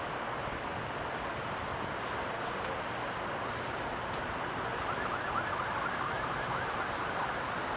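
Steady rushing noise of a heavy thunderstorm's rain, with a siren heard through it about five seconds in, its pitch warbling quickly up and down for a couple of seconds.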